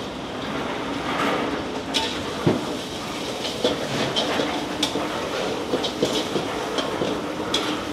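Pad Thai being stir-fried: a metal spatula clanks and scrapes irregularly against the wok, about two strikes a second, over a steady kitchen hum.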